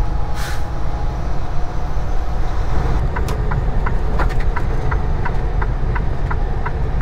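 Steady low engine and road rumble inside a semi truck's cab while driving at highway speed. A light, regular ticking joins about three seconds in, two or three ticks a second.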